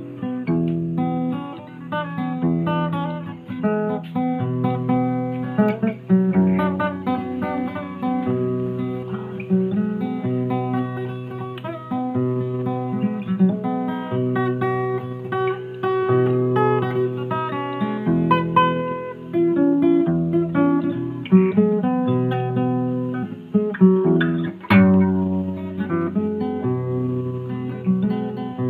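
Acoustic guitar played solo: a melody picked on the higher strings over held bass notes.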